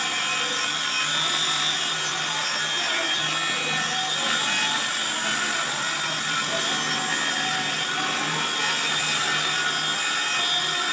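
Cordless circular saw running steadily while ripping a long cut through a sheet of plywood.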